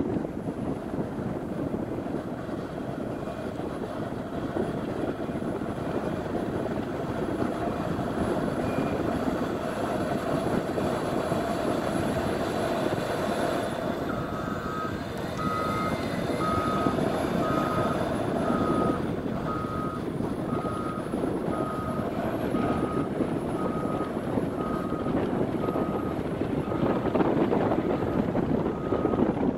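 Cat 140M2 motor grader's diesel engine running steadily under load while it pushes deep snow with a V plow. About halfway through its backup alarm starts, beeping about once a second as the grader reverses.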